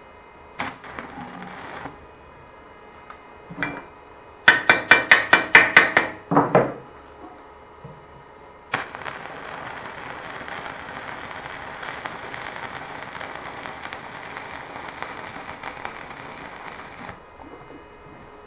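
Electric arc welding on a steel exhaust muffler. A short burst of arc crackle comes first, then about nine quick, loud metal taps in two seconds. After that the arc gives a steady crackling hiss for about eight seconds while a weld bead is laid, and it stops cleanly near the end.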